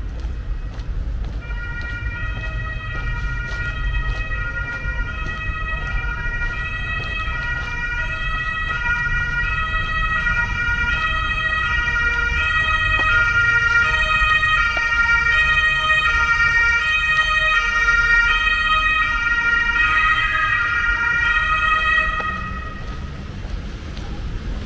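An emergency vehicle's two-tone siren alternating between two pitches, growing louder as it approaches and cutting off near the end, over a low traffic rumble.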